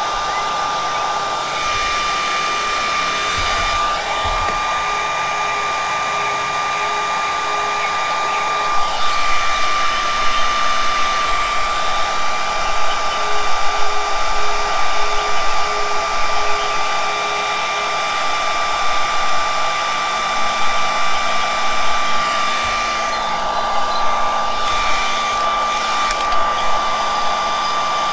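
Electric heat gun blowing steadily, with a constant high whine over the rush of air, as it shrinks heat-shrink tubing on a power wire. The sound wavers in loudness from about a third of the way in.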